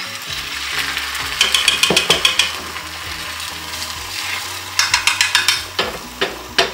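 Beaten egg sizzling in a hot, oiled square tamagoyaki pan as it is poured in. A chopstick stirs and scrapes against the pan in two spells of rapid clicking, about a second and a half in and again about five seconds in.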